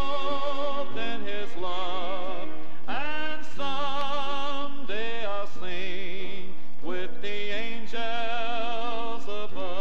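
Southern gospel male quartet singing in close harmony with long, wavering vibrato notes over instrumental backing, from a 1970 vinyl LP recording.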